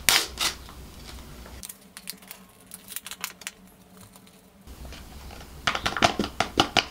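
A paper sauce sachet of chili paste crinkling and crackling as it is torn open and squeezed out, with a quick run of sharp crackles near the end.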